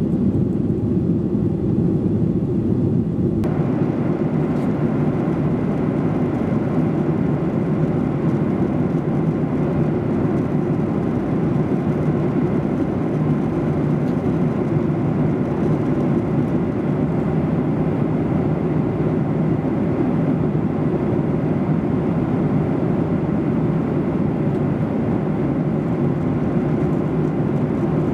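Steady cabin noise of a Boeing 737-800 in flight, a deep rumble of its CFM56 engines and airflow. About three and a half seconds in, the sound shifts abruptly and more hiss comes in above the rumble.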